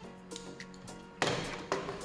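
Background music with steady tones; a little over a second in, a sudden noisy sound cuts in over it.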